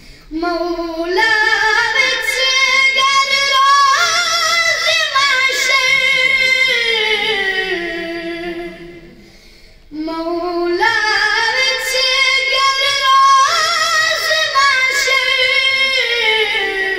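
A boy singing a Kashmiri naat solo and unaccompanied, in two long phrases with vibrato, each climbing and then falling back down, with a short pause for breath about nine seconds in.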